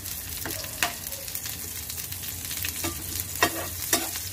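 Chopped ginger, garlic and green chillies sizzling in hot oil in a pan, stirred with a spatula that scrapes and taps against the pan several times.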